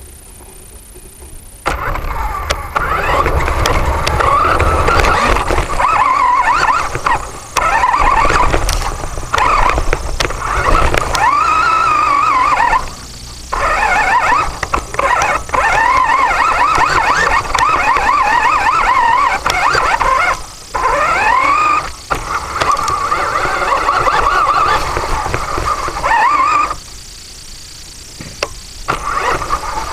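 Small remote-controlled rover's drive running in bursts, a whine that rises and falls in pitch as it speeds up and slows. It stops briefly a few times.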